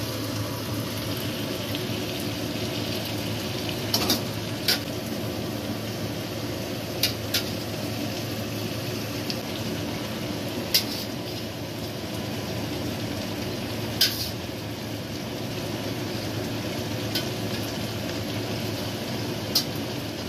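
Beef curry frying in a wok while it is stirred with a wooden spatula: a steady sizzle over a low hum, with a sharp click now and then as the spatula knocks the pan, about eight times.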